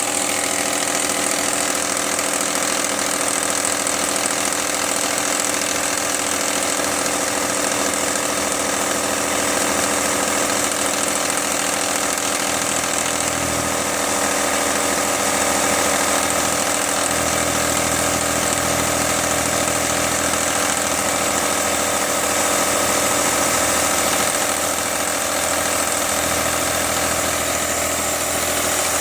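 Mitsubishi 6G72 V6 engine idling steadily with a knock from the hydraulic timing-belt tensioner, the fault the owner is showing.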